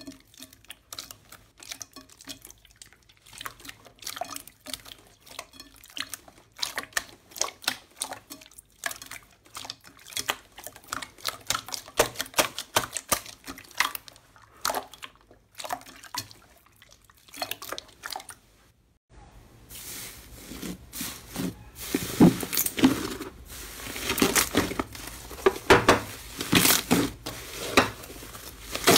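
Hands squeezing and pressing glossy clear green slime in a glass bowl: wet squishing with quick, irregular sticky pops and clicks. About two-thirds of the way through it switches to thick red and green slime being kneaded, with denser and louder squelching pops.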